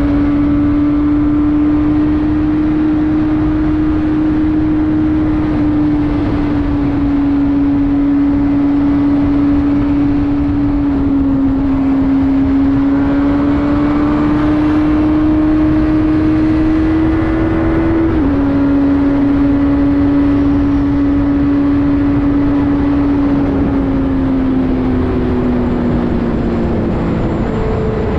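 Benelli TNT600's inline-four engine running steadily under load at speed. Its pitch drops in a step about two-thirds through at an upshift, sags slowly afterwards as the throttle eases, and steps up again near the end.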